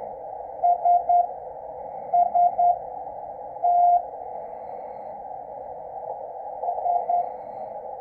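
Morse code beacon received on a Yaesu FTdx10 shortwave transceiver: a keyed tone sends the letters SST (dit-dit-dit, dit-dit-dit, dah) over a steady narrow band of receiver hiss. It begins the next group with three more dits near the end.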